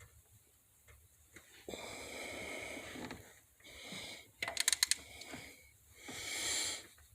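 Gearwrench 120XP digital torque wrench tightening hub bolts: two stretches of buzzing, hissing noise while it is pulled, with a quick run of ratchet clicks between them about four and a half seconds in.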